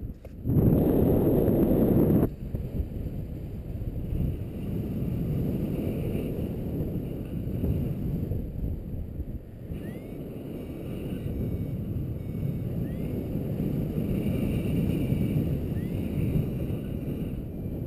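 Wind rushing over the camera microphone of a paraglider in flight, with a louder gust in the first couple of seconds. A few faint, short rising chirps come through in the second half.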